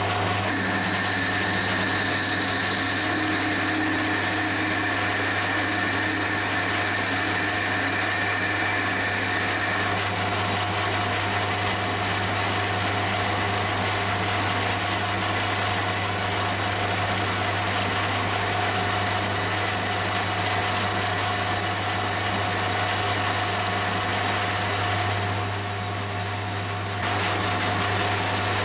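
Metal lathe running while a twist drill fed from the tailstock drills into a spinning cast-iron piston blank: a steady machine hum with higher steady whines. The sound dips briefly in level near the end.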